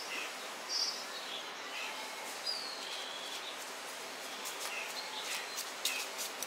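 Steady outdoor background noise with small birds chirping now and then, and a few faint ticks in the second half.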